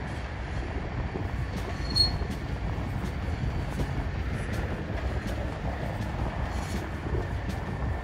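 Steady low rumble of wind buffeting the microphone and tyres rolling on the path while riding a beach cruiser bicycle, with one brief high squeak about two seconds in.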